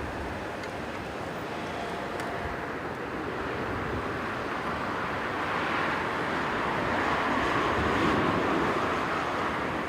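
Strong wind rumbling on the microphone, with the jet engine noise of an approaching Airbus A330-300 airliner growing louder from about four seconds in.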